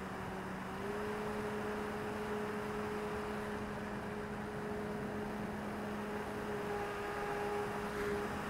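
RC Corsair model's motor and propeller running steadily in flight, as heard from the onboard camera, over a rush of air. Its pitch rises slightly about a second in and eases back down near the end as the throttle changes.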